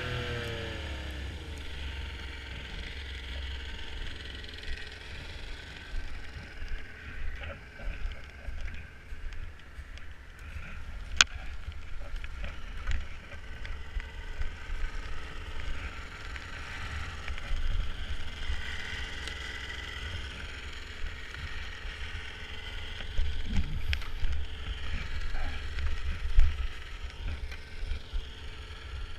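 Snowmobile engine dropping in pitch as it slows in the first second, then a steady low rumble with uneven swells and scattered clicks and rattles, including one sharp click about 11 seconds in.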